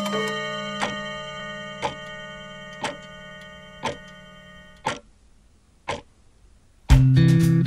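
Song intro: a clock ticking about once a second over held ringing tones that fade away by about five seconds in. Near the end the full band comes in loud, with bass and guitar.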